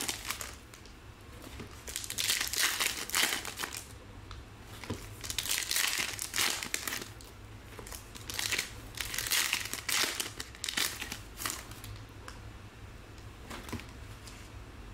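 Foil trading-card pack wrappers crinkling as packs are opened and handled, in repeated bursts every second or two, with cards being shuffled in between.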